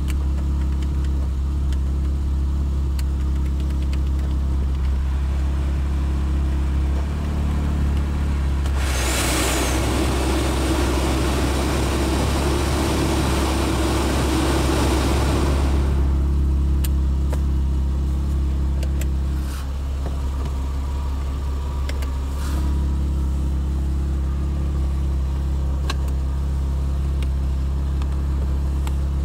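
Porsche Boxster RS60's flat-six engine idling steadily, heard from inside the cabin. About nine seconds in, the climate-control blower rushes loudly for some seven seconds and then drops back. A few button clicks follow.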